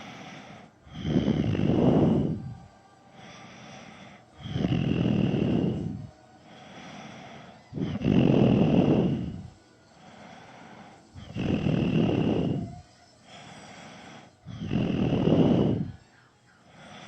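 A man snoring in deep sleep. Five loud snores come about three and a half seconds apart in an even rhythm, each followed by a quieter breath.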